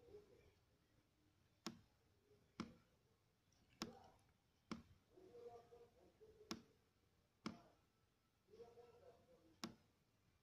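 Computer mouse clicking: about seven sharp, single clicks at irregular intervals, over a faint, muffled murmur.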